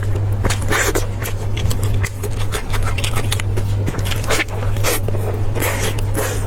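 Close-miked eating of spicy pork: chewing and mouth sounds with many quick clicks and short rustling scrapes, over a steady low hum.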